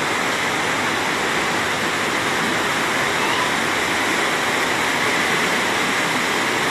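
Floodwater rushing in a steady torrent, swollen by days of heavy rain.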